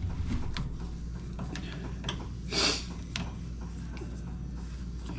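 Pliers turning and pushing a brake caliper piston back into its bore: scattered small metal clicks and one short rushing scrape about two and a half seconds in, over a steady low hum.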